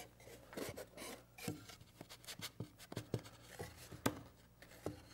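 Wooden box joint pins and slots being pressed together by hand: faint wood-on-wood rubbing with a scatter of small clicks and knocks, the sharpest about four seconds in. A snug friction fit that goes together under hand pressure.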